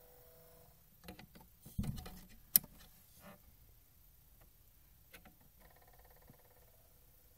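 Record player making the weird faint whirring whine, which stops about a second in. A run of clicks and knocks follows, one sharp click the loudest, and the whine starts again near the end.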